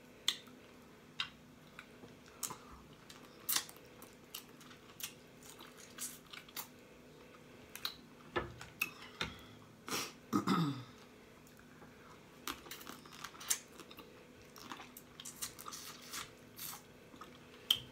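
Close-miked eating of blue crabs: chewing and smacking, broken by sharp, irregular cracks and crunches of crab shell.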